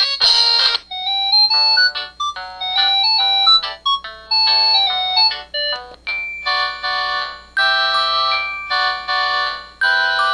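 Samsung SCH-S140 mobile phone playing electronic ringtone melodies through its speaker. One sound cuts off under a second in, a simple tune of single notes follows, and a fuller tune with chords takes over about six seconds in.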